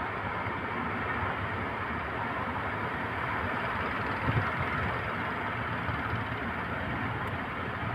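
Big ocean waves breaking: a steady rushing wash of surf, with a brief low thump about four seconds in.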